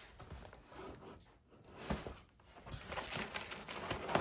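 Faint rustling and light knocks of a cardboard shipping box and its packing being handled by hand; nearly quiet in the middle, busier in the last second and a half.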